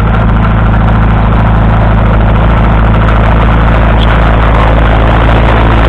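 1955 Bristol 22 crawler tractor's 2.2-litre four-cylinder petrol/TVO engine running at a steady, unchanging pitch as the tractor crawls along.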